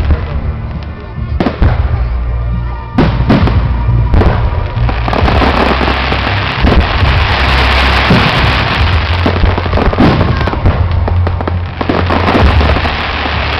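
Aerial fireworks display: a few sharp shell bursts in the first seconds, then from about five seconds in a dense, continuous crackling of crackling stars.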